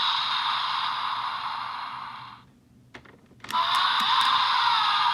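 Bandai Kamen Rider Geats roleplay belt toy playing its electronic music and sound effects through its small speaker. The sound fades out about two and a half seconds in, a few sharp plastic clicks follow, and the toy's sound starts up again about a second later.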